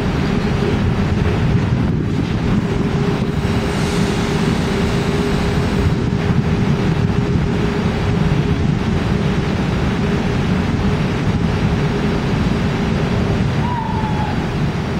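SBB Re 420 electric locomotive standing with its equipment running: a steady low rumble with a constant hum on top. A brief squeak, falling in pitch, near the end.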